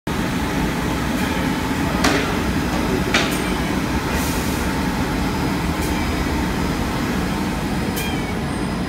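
Steady machine noise of a running UV curtain coating line and its conveyor, with two sharp knocks about two and three seconds in.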